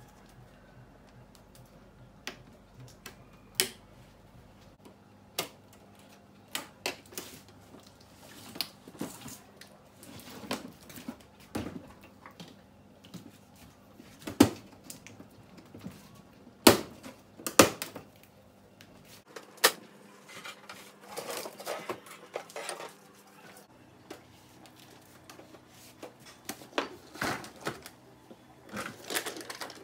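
Irregular clicks, taps and knocks from a disassembled Samsung LCD TV's metal chassis and panel frame being handled, lifted and set down on a table. The sharpest knocks come around the middle.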